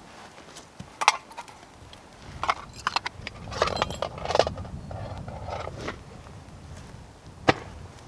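Dry twigs crackling and snapping as a bundle of kindling is handled and pressed into place, with shuffling steps on grass. Two sharp snaps stand out, about a second in and near the end.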